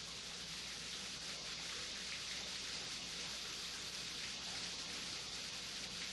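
A steady, even hiss with no distinct events, brightest in the upper range.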